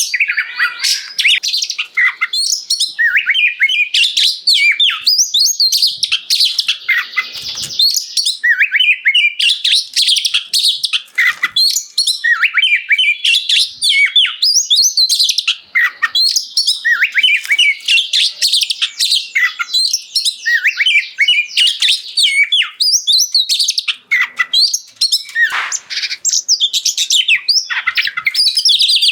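Oriental magpie-robin (kacer) singing loudly in a continuous run of rapid, varied whistles and chirps, the full, non-stop song bird keepers call 'gacor'.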